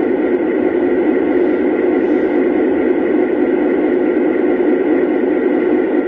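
Lionel Legacy E6 diesel locomotive's onboard sound system playing a steady diesel engine idle through its small speaker, the locomotive standing still.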